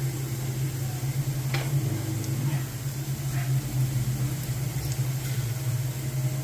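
Steady low mechanical hum of a running motor or fan, with a couple of light ticks in the first half.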